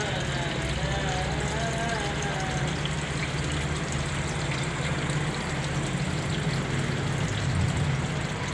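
Water pouring from three pipe outlets and splashing steadily into a koi pond, with a steady low hum underneath.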